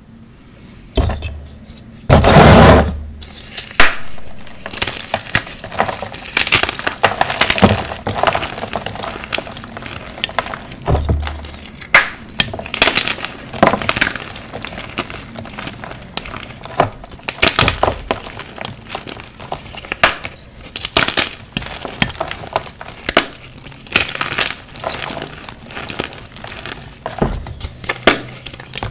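Blocks of dyed gym chalk being crushed and crumbled by hand: irregular crunches and snaps, the loudest about two seconds in, with softer crumbling and squeezing of the powder between.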